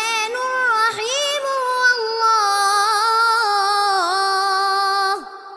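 Quran recitation: a male reciter's voice drawing out one long melodic passage, sung in a high register with wavering, ornamented pitch. It breaks off with a falling glide about five seconds in.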